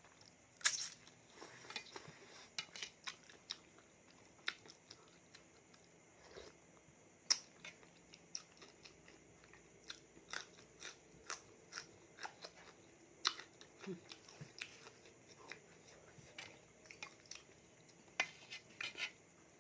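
A person chewing a mouthful of spicy raw seafood salad close to the microphone, with many irregular short wet clicks.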